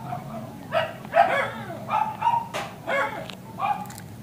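A dog barking repeatedly: a string of short barks, about half a second apart.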